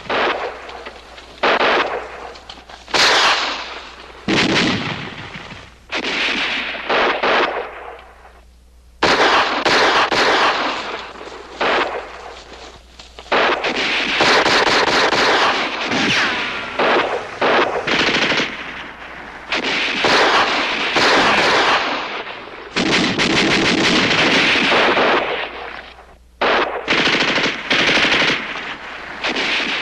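Battle gunfire: long bursts of machine-gun fire mixed with single rifle-type shots. It breaks off in short lulls about eight seconds in and again near the end.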